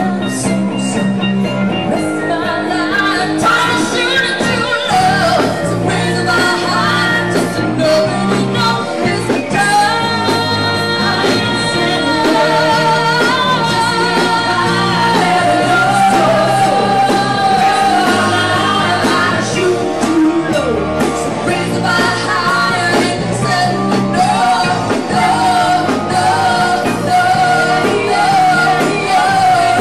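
A live rock band with a female lead singer: she sings into a microphone over electric guitar, bass and drums, holding some long notes with a wavering vibrato.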